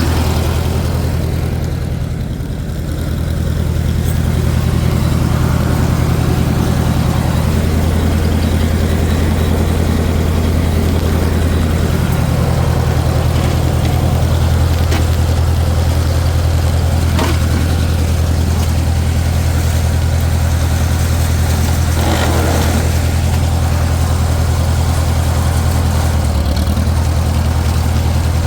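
Farmall 400 tractor's four-cylinder gasoline engine running steadily, with a brief dip in level about two seconds in.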